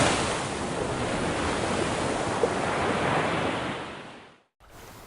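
Steady rushing noise, like surf, fading out about four seconds in, then a sudden cut to a much quieter background.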